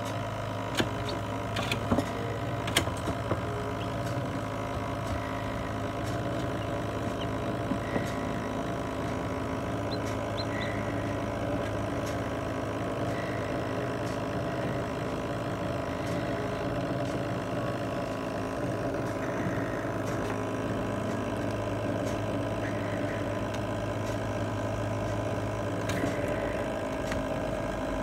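Steady hum of a small computer fan running inside a homemade still-air incubator, with a few light clicks in the first few seconds.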